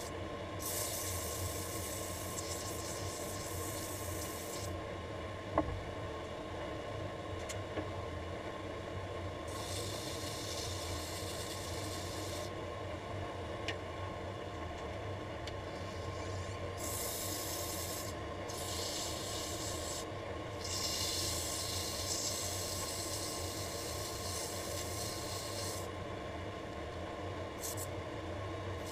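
Small wood lathe motor humming steadily while sandpaper is held against the spinning laminated wooden brush handle, giving a hiss that comes and goes in spells of a few seconds, with pauses between. A single sharp click about six seconds in.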